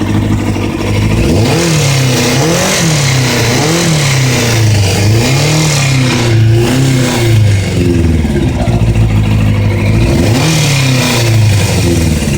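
An engine revved up and down over and over, its pitch rising and falling about once a second.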